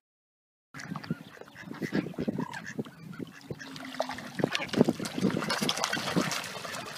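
Ducks quacking over repeated splashing as ducks and a crowd of carp jostle at the water's surface, starting under a second in after a brief silence.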